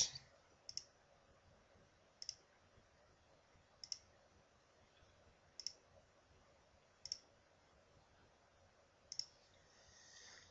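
Computer mouse button clicking, faint: six double clicks (press and release), about one every one and a half to two seconds.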